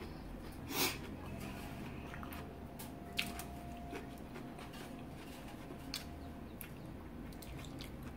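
Quiet eating sounds: fingers pulling apart a sauce-covered chicken wing and a few wet mouth smacks and clicks, over a low steady hum. The loudest is a short sharp smack about a second in.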